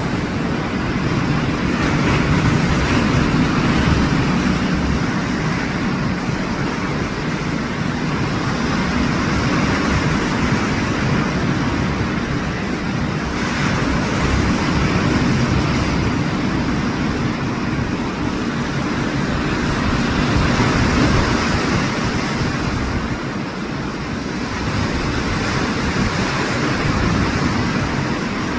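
Sea surf washing ashore, a steady rushing noise that swells and eases every few seconds, with wind buffeting the microphone.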